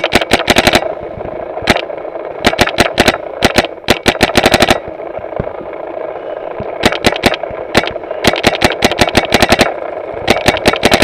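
Planet Eclipse Geo3 paintball marker firing rapid strings of shots, about a dozen a second, in repeated bursts with short pauses between them, over a steady hiss.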